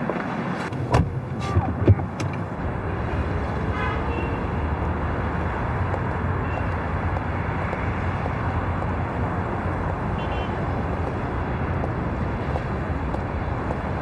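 Steady noise of city road traffic, with a few sharp clicks in the first two seconds.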